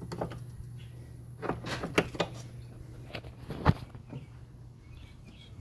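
The latch of a 1966 Vendorlator 110 vending machine's refrigerated compartment being released and its inner door pulled open: a series of metallic clicks and knocks, the loudest about three and a half seconds in, over a steady low electrical hum.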